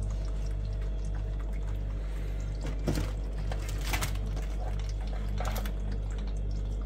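Live blue swimmer crabs shifting in a heap in a steel sink, their wet shells and claws scraping and giving a few sharp clicks, over a steady low hum.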